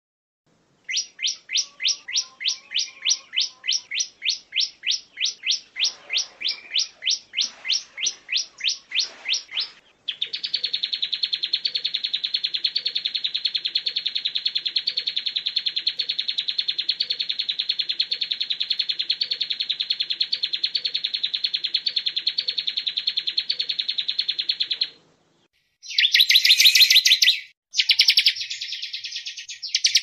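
Songbird singing: a fast run of sharp, high repeated chirps, about three a second, then a long unbroken high buzzing trill lasting some fifteen seconds, and after a brief pause more dense high song near the end.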